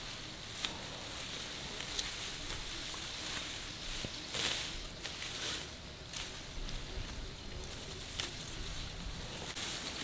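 Grass and leaves rustling as fodder grass is cut and gathered, with a few short sharp snaps and clicks and two brief louder rustles about halfway through.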